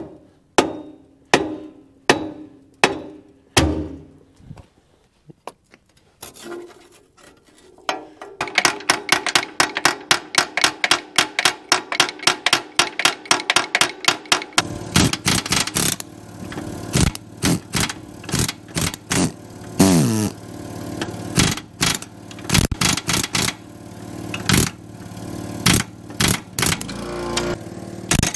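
Repeated hammer blows on steel, each ringing briefly: a seized lower alternator mounting bolt on an old Mitsubishi diesel tractor being beaten loose. The blows come spaced at first, pause, then come faster and denser from about eight seconds in.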